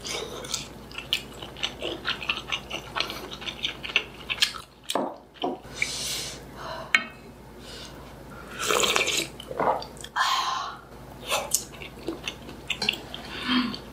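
Close-miked mouth sounds of a person eating Korean street food: chewing with quick smacking clicks, and a few longer noisy bursts in the second half.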